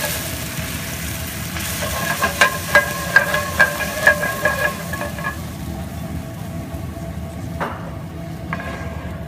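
White wine sizzling in hot garlic oil in a stainless steel skillet. A spoon stirring clicks against the pan about two to three times a second, from about two seconds in to about five seconds in. After that the sizzle quietens.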